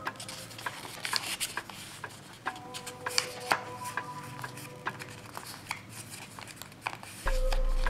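Sheet of origami paper rustling and crackling as hands fold it and press the creases flat, with many sharp little crackles. Near the end a low electrical hum comes in.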